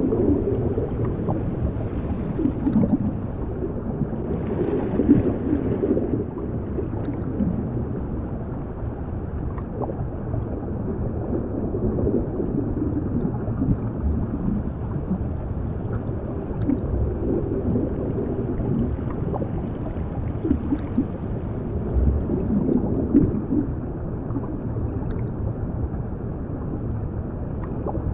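Underwater sound: a steady muffled low rumble with bubbles gurgling and swirling through it.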